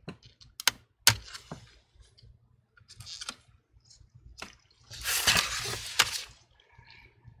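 Clicks and light knocks of a laptop's internal battery being lifted out of the plastic chassis. About five seconds in comes a longer scraping rustle as the laptop base is moved and tilted on the bench.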